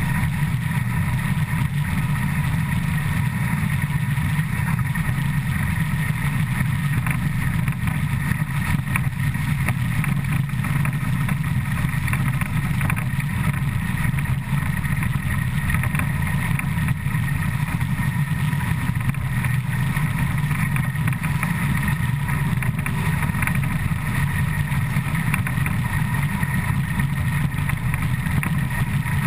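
Steam locomotive 475.179 running at about 100 km/h, heard right beside its driving wheel: a steady, dense rumble and rush of wheels, rods and running gear on the rails, with no change in pace.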